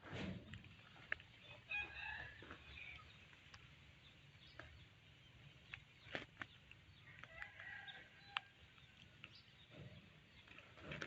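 Faint chickens clucking, with scattered small clicks and taps.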